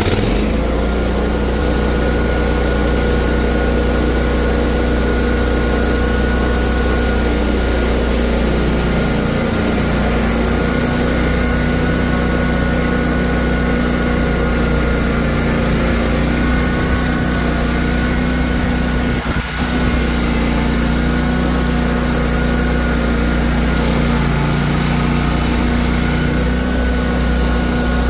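A vehicle engine idling steadily while it warms up in the cold.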